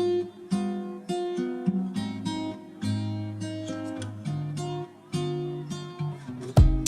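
Background music: an acoustic guitar playing plucked and strummed chords, with a beat of heavy low thumps coming in near the end.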